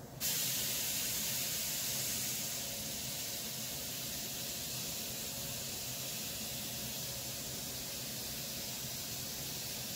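Compressed-air paint spray gun spraying automotive clear coat: a steady hiss of air and atomised paint that starts suddenly as the trigger is pulled, a little louder for the first couple of seconds, then even.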